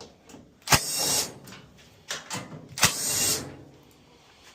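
Cordless drill run in two short bursts of about half a second each, a couple of seconds apart, backing out screws from a dryer panel.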